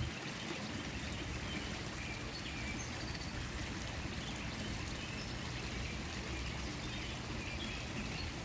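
Steady outdoor background noise, an even hiss-like wash, with faint short high chirps scattered through it.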